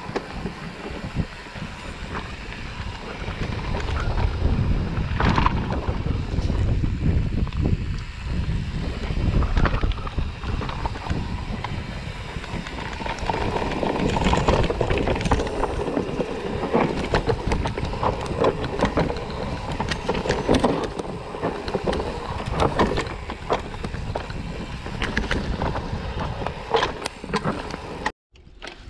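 Mountain bike rolling fast down a dirt forest trail: tyres on dirt and roots, with frequent clicks and rattles from the bike over bumps and wind buffeting the microphone.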